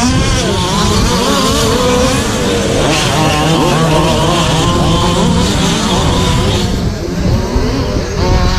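Several radio-controlled short course trucks racing, their motors whining in overlapping pitches that keep rising and falling as they accelerate and brake.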